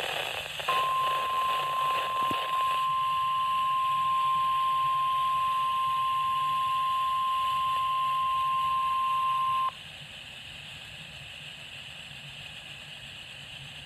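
NOAA Weather Radio 1050 Hz warning alarm tone, sounded as a test: a single steady high-pitched tone that starts just under a second in, holds for about nine seconds and cuts off sharply. It sits over steady radio receiver hiss, which goes on alone afterwards.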